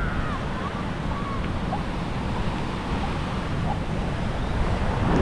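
Wind buffeting the microphone over the steady wash of surf on a beach.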